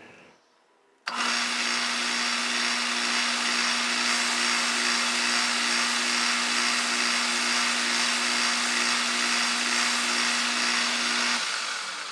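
Metal lathe switched on about a second in, its motor and spindle running with a steady hum and whirr while a light facing skim is taken across a chuck backplate. Near the end the motor is switched off and the sound fades as the spindle runs down.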